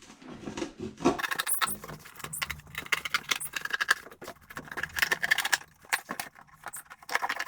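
Cardboard being cut through to make a doorway in a box: a steady run of irregular crackling and scraping strokes.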